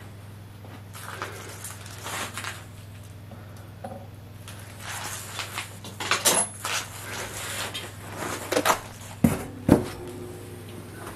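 Light clinks, scrapes and clatter of metal and firebrick being handled at a small electric heat-treating furnace, ending in two sharp knocks about nine seconds in, over a steady low hum.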